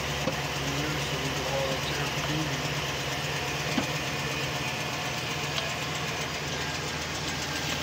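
Pickup truck engine idling steadily, heard from inside the cab, with a few small knocks from items being moved.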